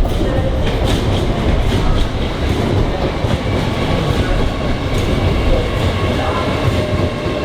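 A train running close by: a loud, steady rumble with scattered irregular clicks from the wheels and track.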